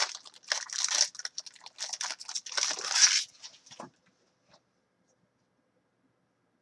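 Trading card pack wrapper being torn open and crinkled by hand, in quick irregular rustles. It stops abruptly about four seconds in.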